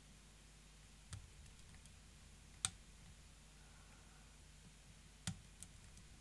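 Four small, sharp metallic clicks of a lock pick working the sliders inside an FTH Surveyor pump lock while the lock is being picked; the sharpest comes about two and a half seconds in.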